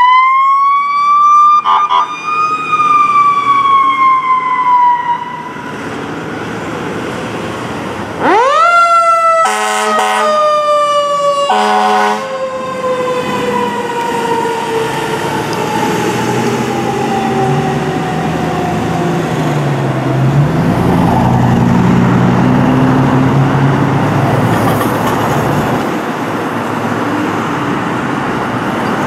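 Federal Signal Q2B-type fire apparatus sirens. The first winds up at the start with two short horn blasts and coasts down. A second winds up about eight seconds in, with several horn blasts, then slowly winds down over about eight seconds. A vehicle engine accelerates away near the end.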